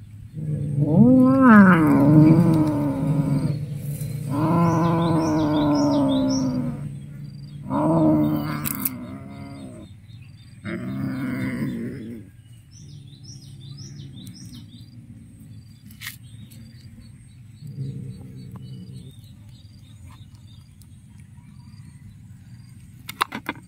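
Cat growling and yowling over its food in long, low, drawn-out calls, four of them in the first half, the pitch rising and wavering; a shorter, fainter growl follows later. Birds chirp faintly in the background.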